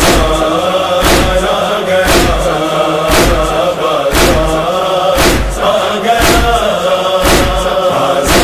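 Noha interlude: a chorus holding a wordless chant over a heavy beat that falls about once a second, in the style of matam chest-beating.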